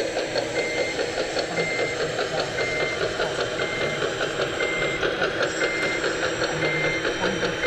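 Reversing beeper of a model construction machine, beeping steadily about once a second. Under it runs a continuous rattling, whirring noise of machinery and stones.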